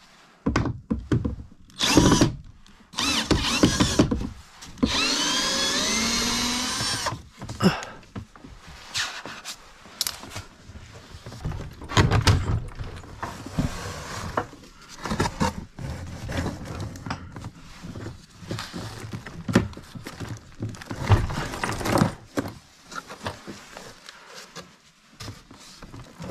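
A power drill running in bursts, with one long run of about two seconds, its pitch wavering, about five seconds in, amid repeated knocks and clatter of wood and tools.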